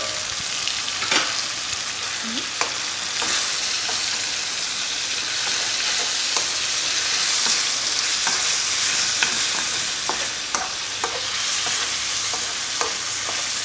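Chicken pieces and sliced patola (sponge gourd) sizzling in an oiled wok while a wooden spatula stirs them, with scattered light taps and scrapes of the spatula against the pan.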